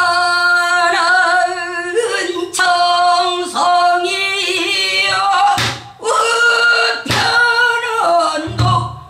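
A female pansori singer singing in the Boseong style, holding long, wavering notes that break off briefly about six and seven seconds in. Two low thumps sound, one near the middle and one near the end.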